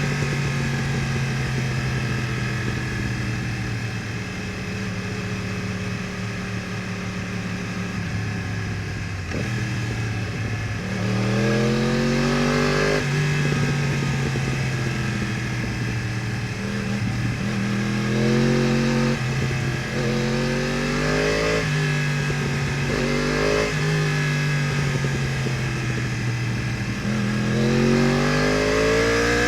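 2015 Yamaha R1's crossplane inline-four with Akrapovič headers and exhaust, heard from the rider's seat. Its note holds steady and sinks slowly at first, then about ten seconds in it starts revving up again and again. Each climb in pitch is cut off by a quick drop as it shifts through the gears.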